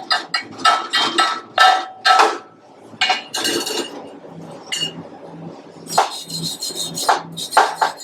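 Rapid metal-on-metal strikes with a ringing note, about three a second at first and then more scattered, typical of a chipping hammer knocking slag off a fresh weld bead between passes.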